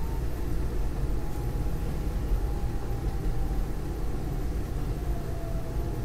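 SEPTA Market–Frankford Line subway-elevated train car in motion, heard from inside the car: a steady low rumble of wheels and running gear, with a faint whine that slowly falls in pitch as the train slows toward a station.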